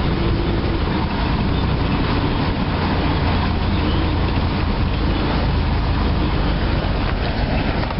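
Ford F-150 pickup with its 300 cubic-inch inline-six engine, running steadily under way, with tyre and road noise.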